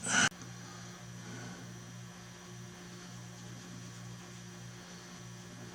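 Steady low electrical hum with faint hiss. A short, loud burst of noise comes right at the start.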